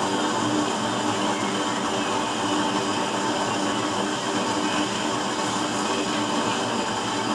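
Used-oil burner stove running with a blue flame: a steady rushing noise with a faint, even hum.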